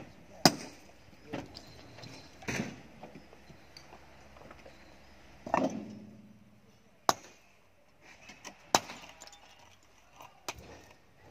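Heavy slabs of mountain rock clacking against one another as they are shifted and set in place by hand in a dump truck bed: sharp, irregular knocks a second or more apart, one about halfway through ringing briefly.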